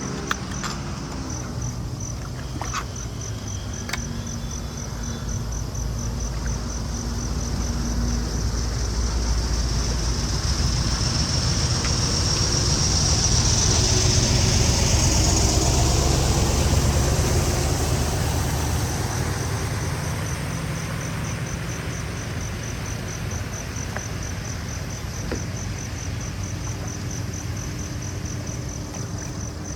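A motor vehicle passes, its engine and tyre noise swelling to a peak about halfway through and then fading away. Steady, rapid, high chirping of insects runs underneath.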